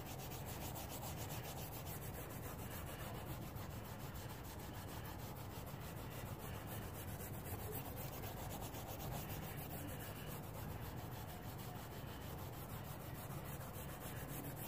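Fine (000) steel wool pad scrubbing the wet, cleaner-soaked whitewall of a tire, a steady rubbing scratch as the brown grime is worked off the white rubber.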